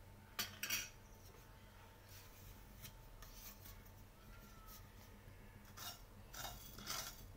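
A wooden spatula scraping and stirring dry whole spices (fennel, cumin, fenugreek and mustard seeds) in a nonstick pan as they are dry-roasted, in a few short rasping strokes from about six seconds in. Two brief scrapes come near the start.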